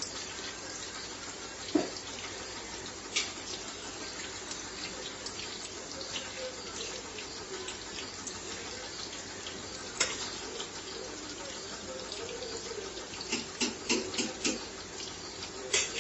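Batter-coated chicken pieces deep-frying in sunflower oil: a steady sizzle with scattered crackles and pops, coming more often near the end.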